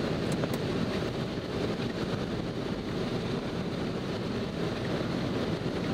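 Steady rush of wind on the microphone mixed with road noise from a moving car.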